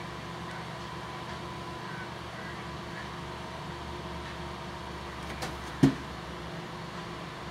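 Steady machine hum with a thin high tone running through it, and one sharp knock nearly six seconds in.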